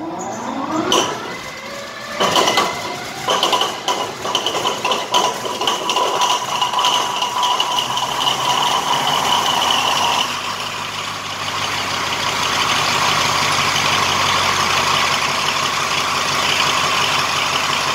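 A Pielstick 16PA4V185VG sixteen-cylinder diesel engine of an Alsthom locomotive starting up. A rising whine as it is turned over, then it catches about two seconds in and fires unevenly with a steady whine over it, and from about ten seconds it settles into an even run.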